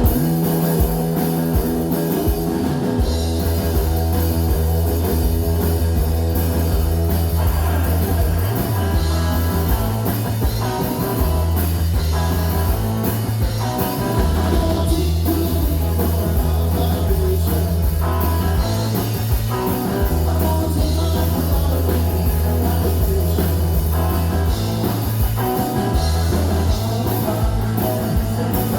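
Live rock band playing through a PA, with a steady drum-kit beat and a strong bass line, recorded on a cellphone.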